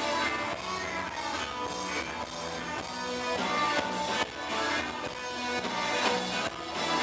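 Live rock band playing an instrumental passage: electric guitars, bass guitar and drum kit played loud through the venue's PA, with regular drum hits over held guitar notes.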